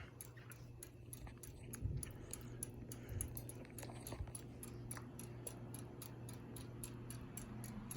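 Hunter Westminster ceiling fan running on low speed: a faint, steady motor hum with a rapid, even ticking about four times a second.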